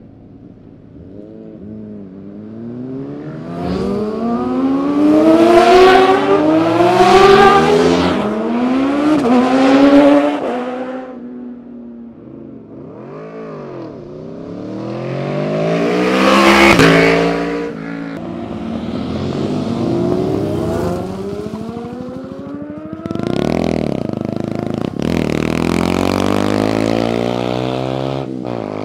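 Sport motorcycles passing one after another through a canyon corner, each engine revving up in rising pitch with short drops at the upshifts. Several bikes go by in turn, the loudest one about the middle.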